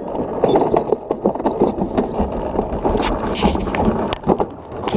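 Toboggan cart rolling along its steel track, its wheels rattling and clattering with many small clicks and knocks as it is drawn onto the chain-driven lift. There is a brief louder scraping hiss about three and a half seconds in.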